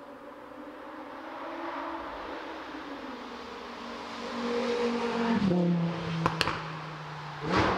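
Lamborghini Huracán Performante Spyder's V10 engine running, its note shifting in pitch and then settling into a steady low tone a bit past halfway. Two sharp cracks come soon after, and a louder burst of sound comes near the end.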